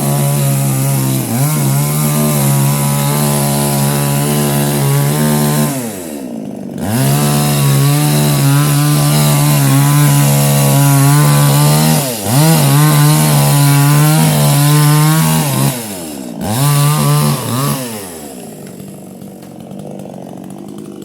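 Chainsaw running at high revs, its pitch sagging and climbing back four times as it is throttled down and up again; it runs quieter for the last few seconds.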